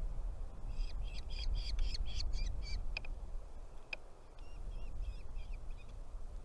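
Nestling birds calling in a quick run of short, harsh calls for about two seconds, followed by a couple of single sharp calls and some fainter, thinner calls. A steady low rumble runs underneath.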